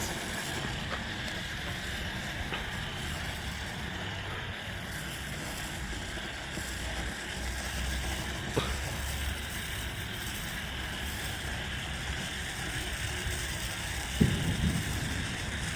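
A handheld colour pencil firework burning with a steady hiss. There is a faint click a little past halfway and a brief louder sound near the end.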